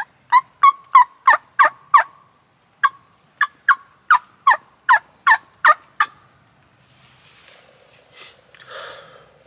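Hen turkey yelps made on a mouth call: two runs of short yelps, each note breaking downward in pitch, about three a second, the second run longer. Faint rustling follows near the end.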